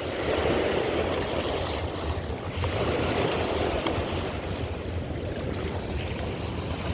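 Rough, fast-flowing river water rushing, swelling and easing in waves; the river is running high and rough from water being let out at the dam.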